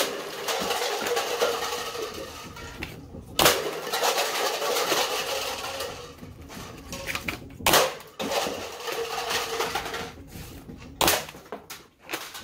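Max Launcher, an elastic-band tennis-ball launcher loaded with bundles of foam Nerf darts, firing four times about every three and a half to four seconds. Each thoomp is followed by a couple of seconds of darts striking and cups clattering as they are knocked off a table.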